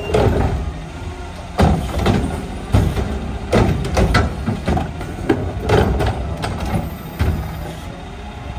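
Mack LR front-loader garbage truck running while its Curotto-Can automated arm picks up a wheeled trash cart, tips it into the carry can and sets it back down. A string of loud bangs and clunks comes from the cart and lid as it is dumped, from about one and a half to seven seconds in, over the steady hum of the truck.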